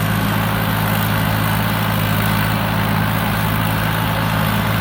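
Thai Seng 'Super Jiw' combine harvester with a four-cylinder turbo diesel engine, running steadily while harvesting rice: a constant low hum with no change in pitch or loudness.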